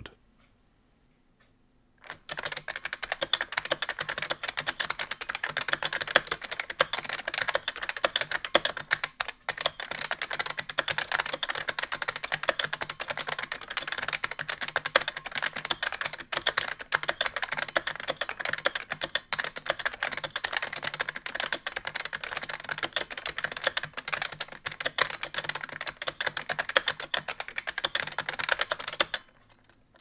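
Fast continuous typing on an AT&T 56k 460 ACW terminal keyboard with AT&T magnetic separation switches. These are a clicky, thunky design in which a magnet acts as the clicker and tactile element. The dense clicking starts about two seconds in and stops just before the end.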